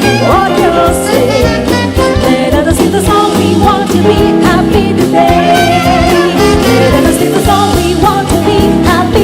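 Jazz band playing a swing-style song: a steady beat from drums and bass under a wavering lead melody, with brass.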